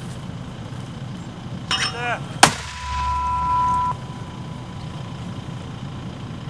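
A mortar tube fires once with a single sharp blast, just after a brief shout. A steady high tone rings for about a second after the blast.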